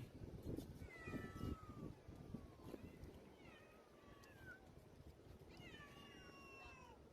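Several cats meowing faintly, in drawn-out falling meows that overlap. They come about a second in, near three seconds, and again around six seconds.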